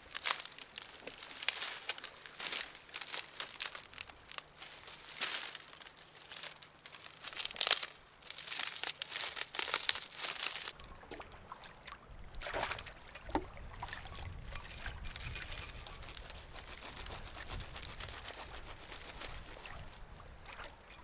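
Dense crinkling and rustling for about the first eleven seconds, then it stops, leaving a quieter steady low rumble with a few soft clicks.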